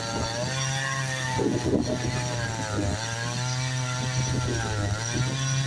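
Two-stroke chainsaw running at high speed through a log, its pitch sagging and recovering a few times as it bites into the wood. The chain has just been sharpened and this cut is its test.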